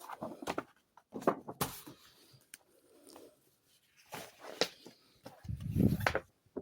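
Handling noises: several short rustles and clicks, then a louder low thump near the end.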